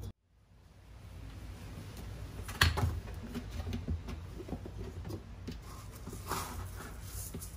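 A few soft knocks and clatters over quiet room noise, the loudest about two and a half seconds in, after a brief moment of dead silence at the start.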